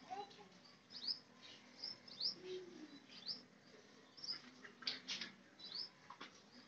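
Small birds chirping faintly in scattered short, high chirps, with a few sharp clicks about five seconds in.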